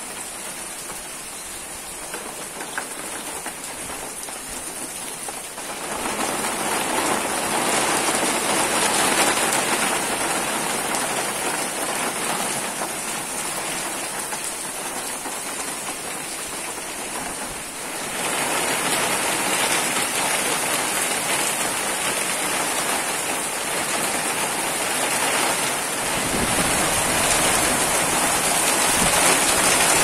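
Rain falling steadily on the garden, lawn and tiled porch as an even hiss of drops. It grows louder about six seconds in and again about eighteen seconds in.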